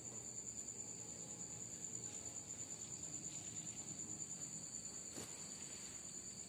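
Crickets trilling steadily at night: an unbroken high-pitched drone on two pitches.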